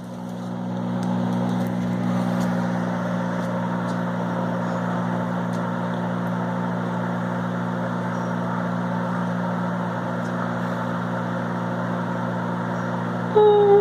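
Microwave oven running: a steady electrical hum with a fan haze, building up over the first second and then holding level. Just before the end a loud tone, sliding slightly down in pitch, cuts in over the hum.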